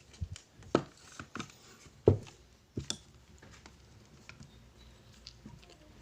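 Handling noise from small parts and tools being picked up and set down on a work surface: a few sharp clicks and knocks in the first three seconds, the loudest about two seconds in, then faint scattered ticks.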